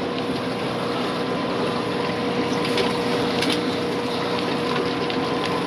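Aquarium pumps and circulating water: a steady rush of running water with a constant hum.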